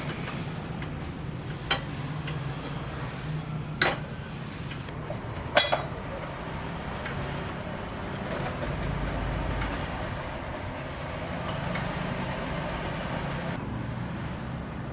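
Steady low engine hum with four sharp knocks in the first half, the middle two the loudest, from work on a building site.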